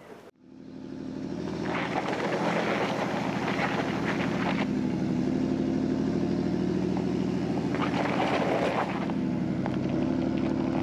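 An engine running steadily with an even low hum, fading in over the first second.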